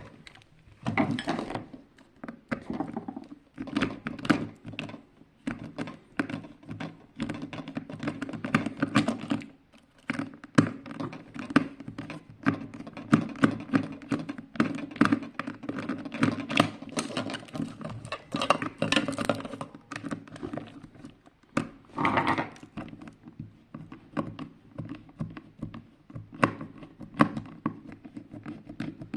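Many irregular clicks, taps and knocks of small plastic parts being handled and pried apart while a projection alarm clock is disassembled, a few of them sharper and louder.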